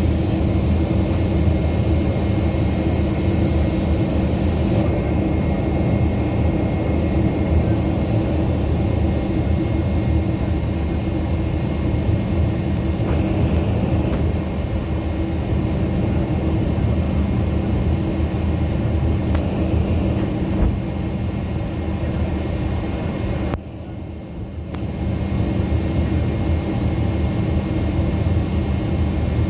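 Airliner jet engines and airflow in flight, a steady deep drone with a low rumble and a few held tones. It dips briefly about twenty-four seconds in and then builds back up.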